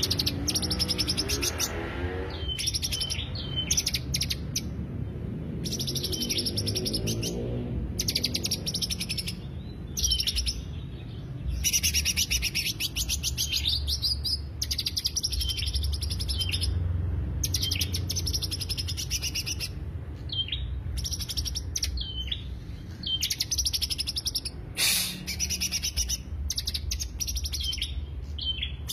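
Cucak hijau (green leafbird) singing a lure song: bursts of very rapid, high chattering notes, each lasting a second or two with short pauses between, over a steady low hum.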